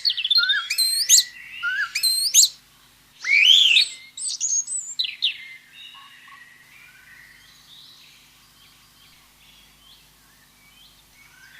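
Birds chirping and calling. A sharp chirp repeats about once a second at first, then comes a louder rising call, then a few more chirps, and from about six seconds in only faint scattered calls remain.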